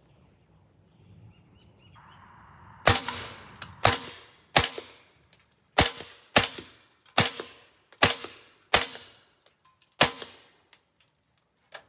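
Nine suppressed shots from a .300 Blackout AR-15 fitted with a Silencerco Hybrid 46M suppressor, firing subsonic 220-grain loads, so there is no bullet crack. The shots come one after another at a quick, slightly uneven pace, each with a short ringing tail.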